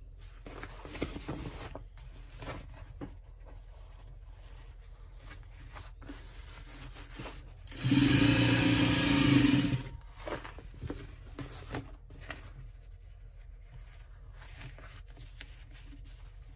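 Sewing machine stitching in one short run of just under two seconds, about eight seconds in. Around it, heavy woven fabric rubbing and scraping as it is handled and repositioned under the presser foot, with small clicks.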